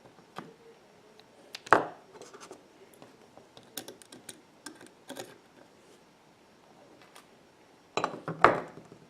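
Small hand tools clicking, tapping and scraping against the parts of an iPhone 6 during disassembly, with two louder knocks, one about two seconds in and one near the end.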